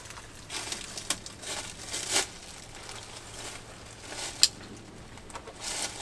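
Footsteps crunching through dry fallen leaves in uneven steps, with one sharp snap about four and a half seconds in.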